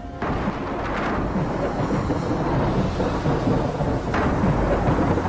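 Deep rumbling with a steady rushing hiss, like thunder and heavy rain, swelling about a second in and again about four seconds in.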